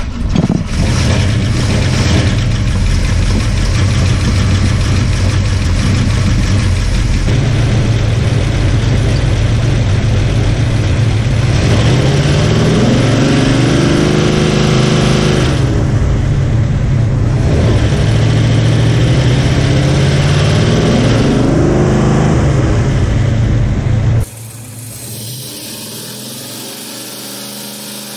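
Rebuilt, cammed 351 Cleveland V8 idling loudly while being checked with a timing light; the revs are run up and let fall twice in the second half. Near the end the sound drops abruptly to a quieter, steadier idle.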